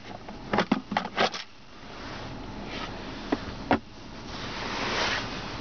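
Plastic clicks and knocks as an organiser tray in a 2018 Chevy Colorado's centre console is handled, then two sharp knocks as the armrest lid is shut, followed by a soft rising rustle of a hand moving over the lid.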